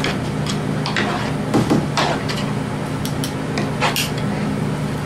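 Scattered clinks and knocks of metal pans and utensils over a steady low hum, as a smoked pork butt is stripped of fat by hand.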